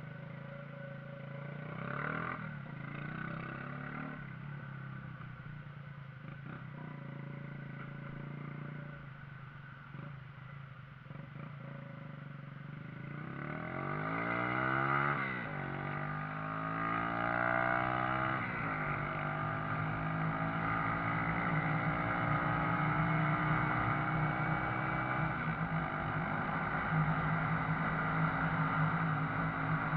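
Shineray motorcycle engine running at low speed, then accelerating about halfway through: the note rises, drops briefly at a gear change, rises again, and settles into a steady, louder cruise.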